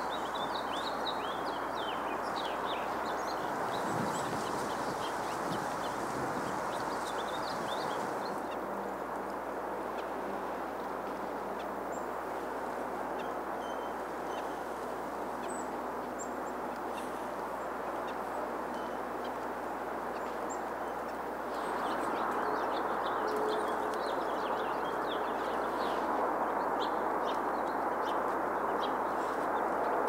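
Small birds giving quick, high chirping calls over a steady background hiss. The chirping is busy at the start, thins out for a while, then picks up again from about two-thirds of the way in.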